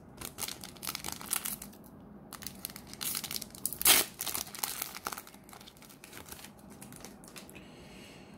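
A plastic trading-card booster pack wrapper crinkled and torn open by hand, with irregular crackling and one sharp rip about four seconds in.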